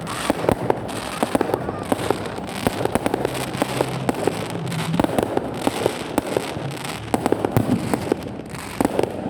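Fireworks crackling and popping in rapid, irregular succession.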